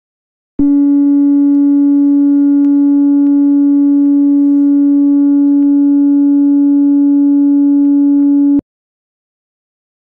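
A JBL portable Bluetooth speaker plays a single steady low tone into a clear resonator tube with one end closed. The tone is set to the tube's fundamental resonance frequency, so a quarter-wave standing wave forms in the air inside. It starts abruptly about half a second in and cuts off suddenly after about eight seconds.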